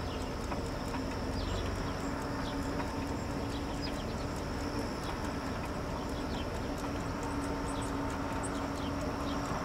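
A Belgian Malinois trotting on asphalt beside a rolling bicycle, its quick light footfalls heard against a steady outdoor background.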